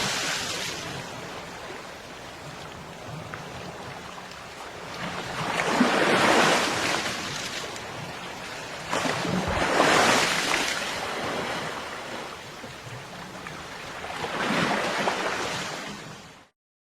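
Ocean waves breaking on a beach: a steady surf hiss with a wave surging in about every four seconds, three times. The sound cuts off suddenly near the end.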